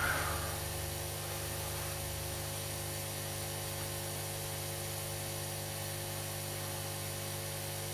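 Aoyue 968 hot air station running, its fan blowing a steady whir and hiss of air through the nozzle with a faint steady hum.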